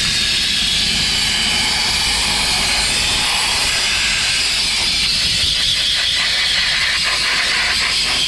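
Steam cleaner wand jetting steam inside a car cabin: a loud, steady hiss.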